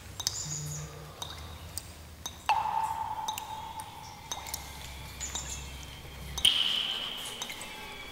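Sparse, eerie ringing tones like struck chimes over a low steady hum: a middle tone that starts suddenly about two and a half seconds in and slowly dies away, then a higher one near the end, with scattered faint clicks.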